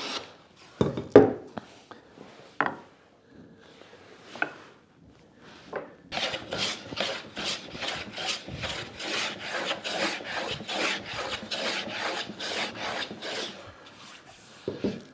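Metal bench hand plane cutting shavings from the edge of a hardwood board in a run of short, quick strokes, about two to three a second, after a few separate knocks in the first half.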